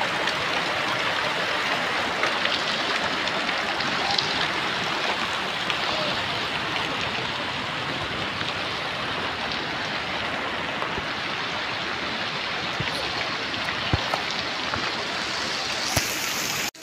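Muddy floodwater rushing across the ground in rain: a steady, even rush of water.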